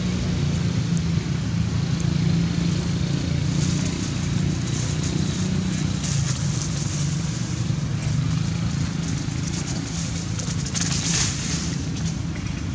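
A steady low rumble like a running engine, with dry leaf litter crackling and rustling under running macaques in two bursts, about four seconds in and again near the end.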